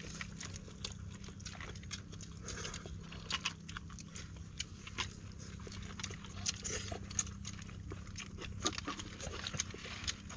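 Close-up eating sounds from several people eating with their hands: chewing and lip-smacking with scattered small clicks and taps, over a low steady background rumble.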